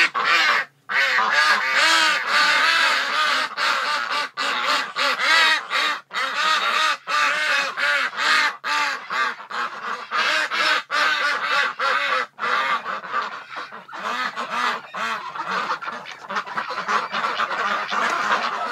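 Mixed flock of domestic ducks, white Pekins and mallard-coloured Rouens among them, quacking loudly all together, many overlapping calls without a pause.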